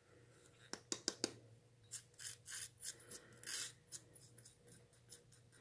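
Faint handling of a small ceramic ramekin emptying granulated sugar into a bowl of flour: a few light clicks of ceramic about a second in, then a run of short gritty scrapes and rustles as the upturned ramekin is tapped and rubbed to shake out the last grains.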